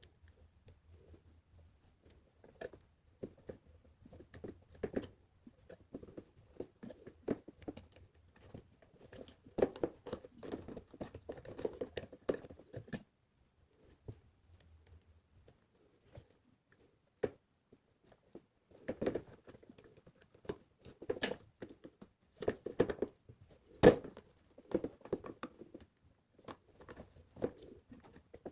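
Hands working an LCD display into an electronics enclosure: irregular clicks, taps and light rustling in two busy spells with a quieter gap between, and one sharp, louder click late on.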